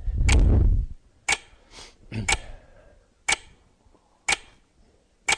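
Clock-ticking sound effect, one sharp tick a second, opening with a loud low boom in the first second.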